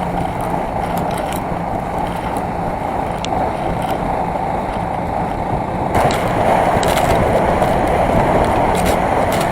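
Steady rumbling and scraping travel noise of a ride over snow and ice, growing louder about six seconds in.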